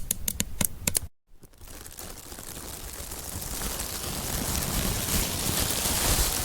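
A fast run of crackling creaks, like wood strained under tension, lasting about a second. After a brief gap, plastic is crinkled continuously, growing steadily louder.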